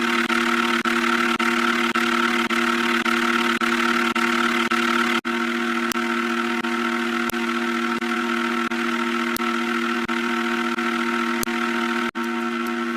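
A steady drone of several held tones, unchanging in pitch, briefly cut off about five seconds in and again near the end.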